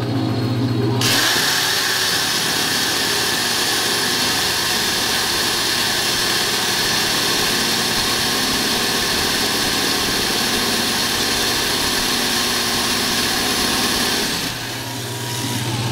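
Electric drill boring into the steel shell of an air-conditioner compressor, a steady grinding hiss that starts about a second in and stops near the end; the bit is cutting through, but slowly.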